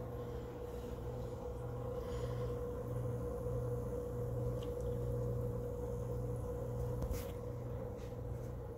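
Steady hum of a running reef aquarium's equipment: a low drone with a constant higher tone over it. A short click comes about seven seconds in.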